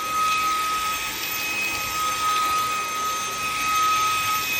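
Vacuum cleaner running steadily, its motor giving a constant high whine over a rushing airflow.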